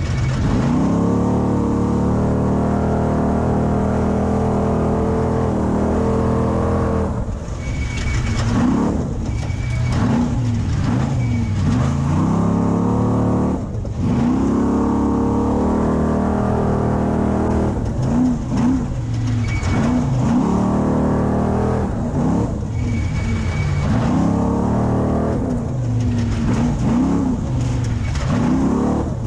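Class 6100 Spec Trophy Truck's engine under race load, holding a steady pitch for about seven seconds, then revving up and falling back again and again as the throttle is lifted and reapplied.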